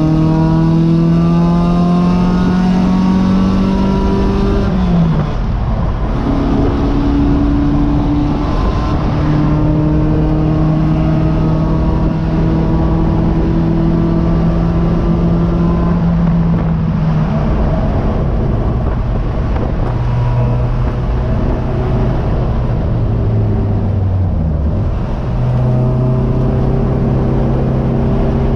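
Race car engine heard on board under hard driving, its note climbing steadily as it pulls, then dropping sharply at gear changes about five seconds in and again past the middle. It runs lower for a few seconds near the end before picking up again.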